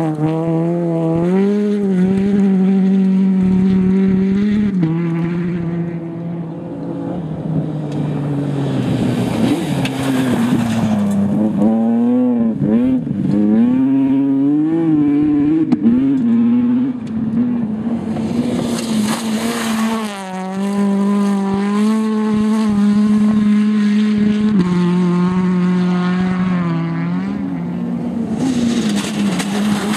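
Rally cars, among them a Peugeot 208 and a Ford Fiesta, driven hard through loose dirt corners one after another. Engine notes hold high revs, then jump and swoop with gear changes and throttle lifts. Several stretches of hissing spray from the tyres are mixed in.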